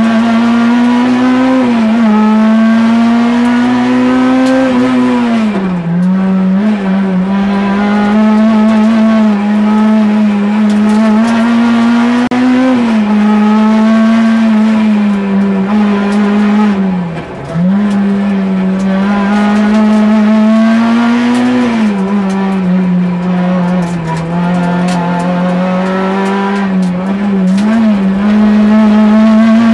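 Peugeot 106 kit rally car's four-cylinder engine heard from inside the cabin, running hard at high revs. The pitch drops and climbs again several times, most deeply about two-thirds of the way through.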